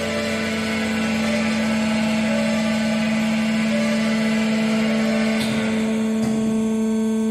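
MACC Special 315 A horizontal metal band saw running, its motor and drive giving a steady hum, with a couple of light knocks near the end.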